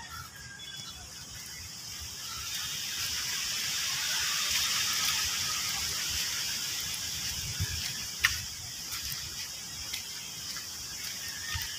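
A gust of wind rushing through the trees, swelling over a few seconds and then easing off.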